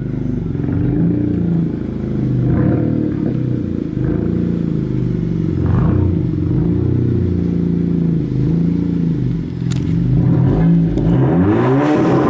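Car engine running, its low exhaust note shifting in pitch, with a rev that rises and falls near the end.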